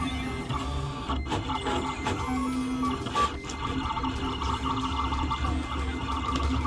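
Siser Romeo vinyl cutter cutting glitter heat-transfer vinyl: its motors whine in short runs that keep changing pitch as the blade carriage and mat move, with two sharp clicks about one and three seconds in.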